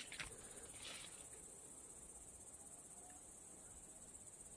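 Crickets chirping: a faint, steady, high-pitched trill in the evening garden. Two soft rustles come in the first second.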